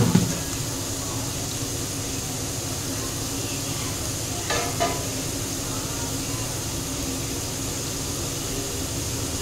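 Chopped onions and ginger sizzling steadily in hot oil in an aluminium kadai. A sharp knock comes right at the start and a short clatter about halfway through.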